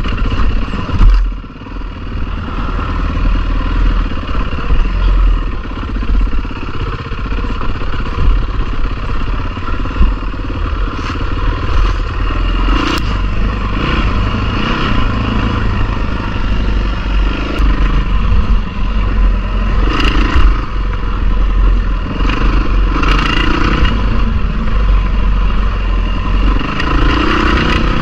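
Dirt bike engine running at varying throttle over a rough sandy trail, under heavy wind rumble on the microphone. Scattered knocks and clatter from the bumps, with one sharp thump about a second in.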